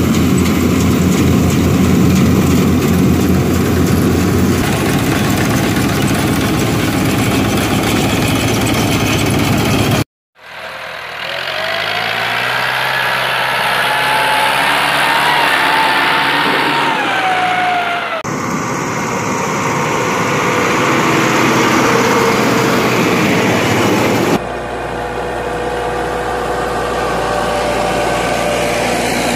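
Massey Ferguson farm tractor engines running across several clips joined by abrupt cuts, with a brief dropout about ten seconds in. In the middle clip the engine's pitch rises and falls as it is revved.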